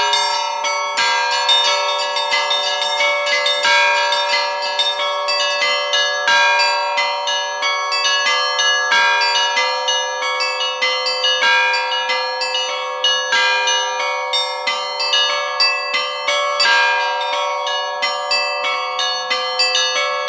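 Russian Orthodox church bells ringing a continuous peal, with small and medium bells struck several times a second in overlapping strokes and no deep bass bell sounding.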